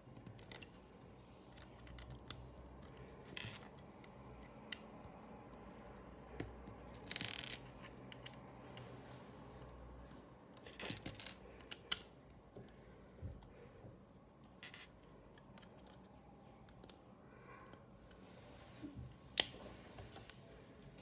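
Plastic Lego bricks and plates clicking and clattering as they are handled and set down on a glass tabletop: scattered sharp clicks, a short rustle of pieces about seven seconds in, and louder clicks around twelve seconds and near the end.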